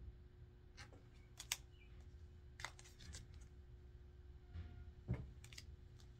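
Tarot cards being handled and flipped: about half a dozen faint, sharp clicks and taps of card stock, over a steady low hum.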